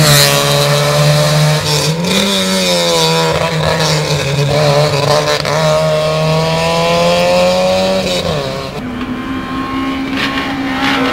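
Competition car's engine revving through a slalom course, its note climbing and dropping several times as the throttle is worked between the cones. After a cut, about nine seconds in, a second car's engine holds a steadier note.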